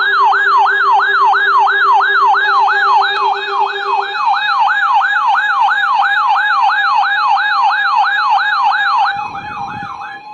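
Electronic siren in yelp mode, its pitch sweeping rapidly up and down about three and a half times a second; it fades out about nine seconds in.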